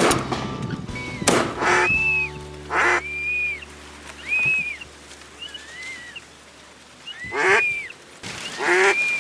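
Two shotgun shots in the first second and a half, then a series of short honking waterfowl calls, about half a second each, repeating every second or so.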